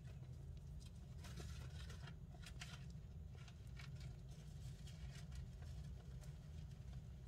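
Faint, irregular crackling and rustling from a fire skink and giant mealworms in the bark substrate of its enclosure, busiest from about a second in to past the middle, over a steady low hum.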